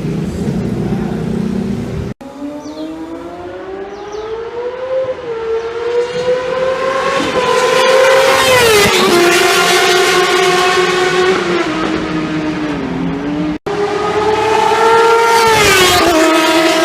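Superbike engine running at high revs, its pitch climbing steadily and then falling in steps as it shifts gear or sweeps past. Two abrupt gaps where the sound cuts out for an instant.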